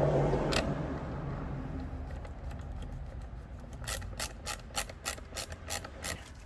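A single sharp click about half a second in, then a run of about eight sharp ratcheting clicks, roughly three a second, near the end.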